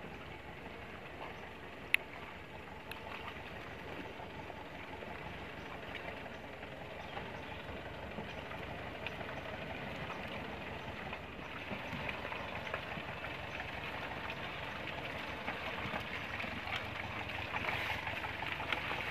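Mitsubishi Triton pickup running slowly in low gear down a steep mud slope, engine and tyres in the mud growing steadily louder as it comes nearer. A single sharp click about two seconds in.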